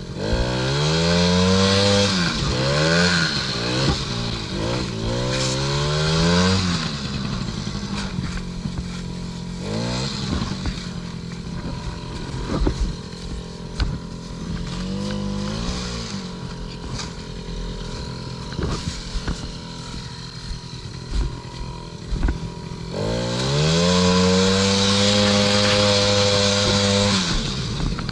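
Small 50cc two-stroke engine of a kids' ATV revving up and dropping back again and again, settling to a lower running speed for a few seconds in the middle, then held at high revs for several seconds near the end.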